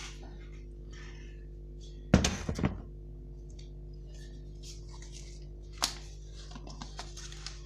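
Containers and tools being handled on a hard surface: a loud clattering thunk about two seconds in, a single sharp knock near six seconds and a few light clicks near the end, over a steady low electrical hum.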